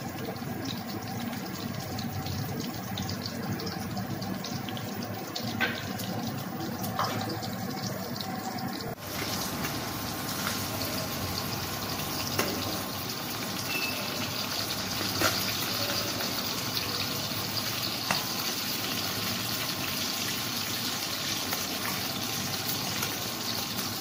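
Marinated fish steaks sizzling steadily as they shallow-fry in hot oil in a metal kadai, with a few sharp clicks of a metal spatula against the pan as they are turned.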